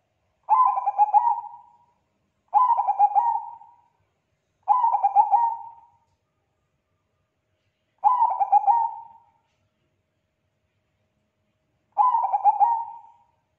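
Zebra dove of the Bangkok (Thai) song strain singing its cooing song: five phrases of quick rolling coos, each about a second long and trailing off, with the gaps between them growing longer.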